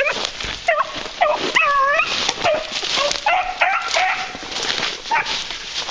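Beagles baying while running a rabbit's trail, a string of short yelping bawls overlapping from more than one hound, with one longer drawn-out bawl about two seconds in.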